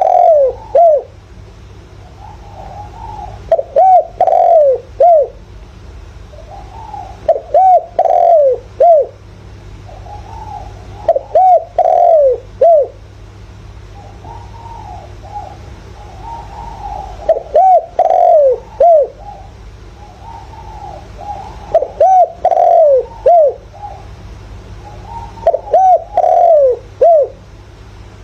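Spotted dove cooing: a phrase of three or four quick coos, repeated about every four seconds, with softer cooing between phrases. It is a decoy bird's territorial call, the kind used to provoke wild males.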